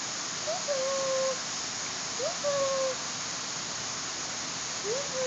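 Black bear cub calling: three short whining cries about two seconds apart, each a quick upward slide into a held note, over a steady hiss of falling water.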